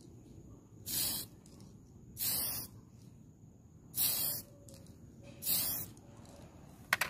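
Tamiya aerosol spray can hissing in four short bursts of about half a second each, spraying grey paint onto a plastic model ship hull in separate passes. Two sharp clicks come near the end.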